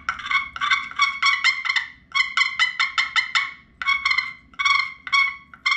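A turkey call played as a run of short hen-turkey yelping notes, with a quicker burst of notes about two seconds in, then slower, spaced notes.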